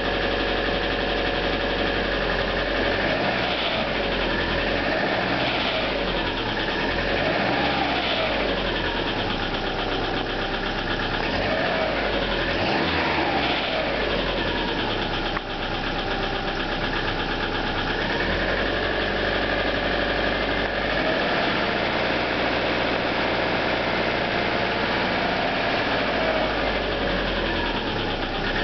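Subaru EJ25 2.5-litre flat-four engine running with the knocking rattle of piston slap, a sign of worn pistons. The engine speed rises and falls several times.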